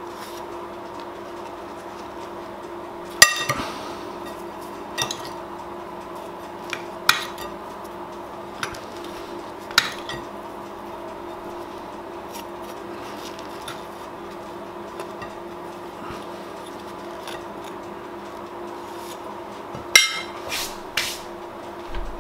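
Metal spoon clinking and tapping against a glass bowl while a slice of French toast is turned in cinnamon sugar: a dozen or so sharp clinks, the loudest about three seconds in and a cluster near the end. A steady hum runs underneath.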